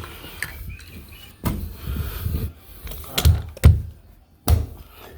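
A handful of irregular dull thumps and knocks from carpet-installation work on the floor, the loudest a little over halfway through.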